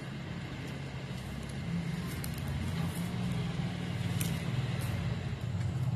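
A steady low motor-like hum that grows somewhat louder about two seconds in, with faint scattered crackles and ticks of plastic basket-weaving wire being handled.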